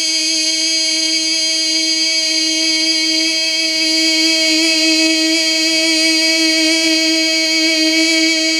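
A male naat reciter holding one long, steady sung note through a microphone and PA, unbroken for the whole stretch.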